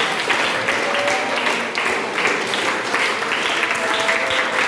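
Applause from a roomful of boys clapping, steady and dense.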